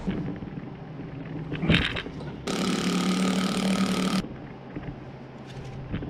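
A power tool fitted with a 5/8-inch socket runs in one steady burst of under two seconds, spinning out a rear-sprocket bolt. A single metal clink comes about a second before it starts.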